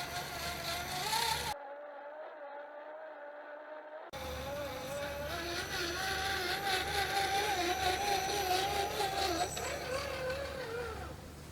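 Electric motor and gearbox of an RC rock crawler whining, the pitch wavering up and down with the throttle. It drops to a quieter, thinner whine for about two and a half seconds after the first second and a half.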